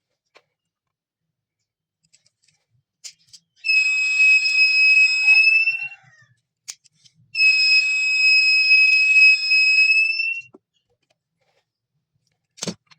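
Piezo buzzer alarm of a homemade gas/smoke detector sounding twice: a loud, steady high-pitched beep of about two seconds, then one of about three seconds, each rising slightly in pitch as it ends. A sharp click comes near the end.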